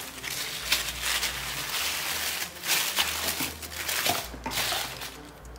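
Tissue paper rustling and crinkling as it is unfolded and pushed aside by hand.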